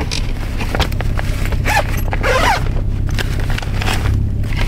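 A fabric duffel bag being rummaged through: rustling cloth and a zipper, most busily about two seconds in, over a steady low hum.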